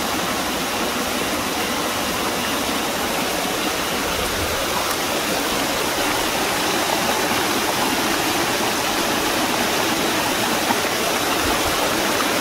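Hot spring water rushing and splashing down a rocky slope, a steady loud rush.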